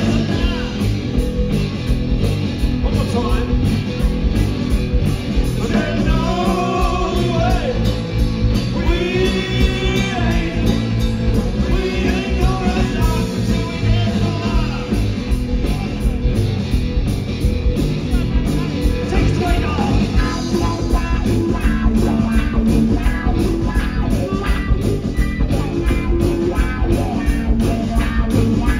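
Live blues-rock band playing: electric guitars over a drum kit.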